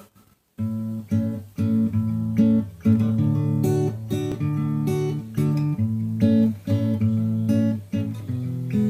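Acoustic guitar strumming a chord progression, starting about half a second in: the instrumental intro of a song before the voice comes in.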